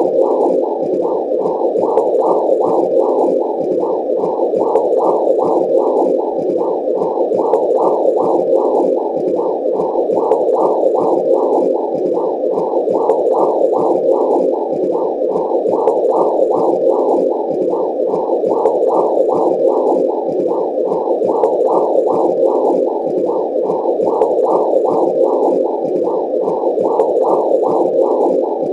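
Womb sound effect: a muffled whooshing noise that swells in a steady pulse about twice a second.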